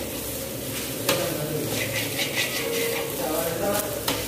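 A steel ladle scraping and turning fried rice around a large steel pan on a gas burner in quick repeated strokes, with a sharp clink of metal on metal about a second in, while the rice sizzles.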